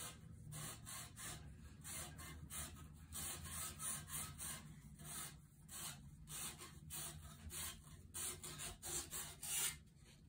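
Medium-grit sandpaper rubbing inside a carbon fork's steering tube in quick, short scratchy strokes, about two or three a second, roughing up the inner surface so the epoxied insert will bond. The strokes stop near the end.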